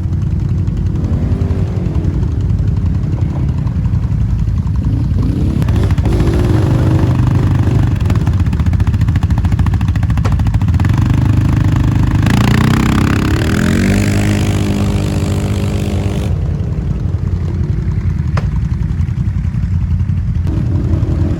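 2021 CFMOTO CForce 450L ATV's single-cylinder engine idling and being revved with the throttle: a few short blips, then a longer rev rising in pitch for several seconds before falling back to idle, and one more brief blip near the end.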